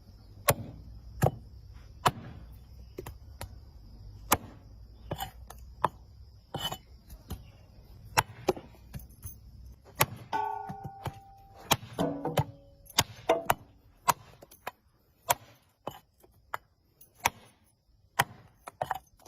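Knife chopping down onto a cutting surface in sharp, single strokes, roughly one a second and unevenly spaced.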